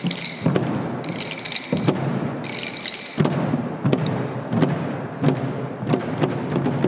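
Ensemble of Korean barrel drums (buk) struck with wooden sticks in a steady beat, about two strikes a second. Over the first three seconds there are short stretches of a higher clatter on top of the drums.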